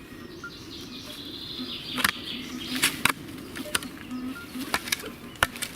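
Woodland sound: a buzzing insect comes and goes over faint birdsong, with a string of sharp clicks or snaps from about two seconds in.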